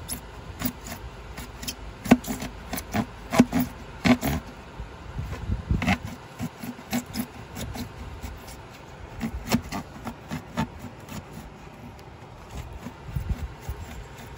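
A handheld blade cutting through a foam skull: irregular short scraping strokes that come in bunches as the blade is worked along the cut.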